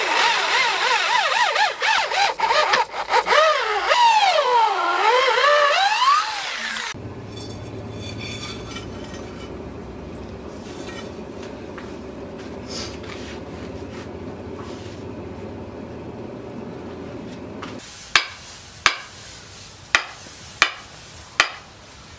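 Hand-held electric drill boring into a wooden knife handle, its motor whine rising and falling as the trigger is eased and squeezed, for about seven seconds. Then a steady rushing noise from the charcoal forge as the knife tang heats, and near the end five sharp knocks about a second apart, each with a short ring.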